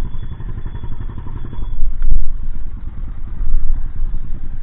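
Hero Honda Splendor's single-cylinder four-stroke engine idling steadily, with a brief rise in level about two seconds in.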